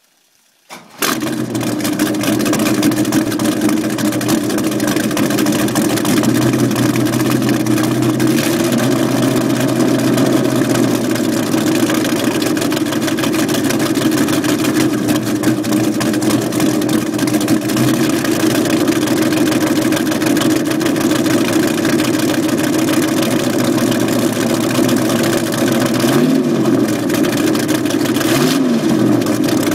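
Offshore race boat's engine, out through its twin transom exhaust pipes, starting about a second in and then idling steadily on the trailer. It is revved up and back down a few times near the end.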